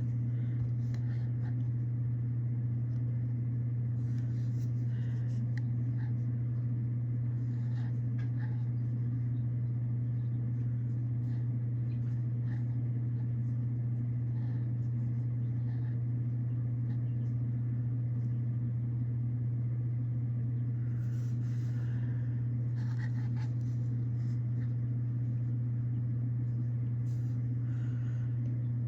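Steady low electrical hum from a mains-powered appliance, with faint scattered clicks and rustles of eggs being handled.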